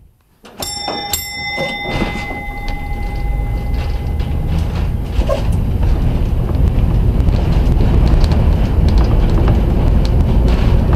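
A streetcar's gong struck twice in quick succession about half a second in, ringing on for a couple of seconds. Under it the streetcar runs on its rails with a steady rumble that grows louder, with scattered light clicks.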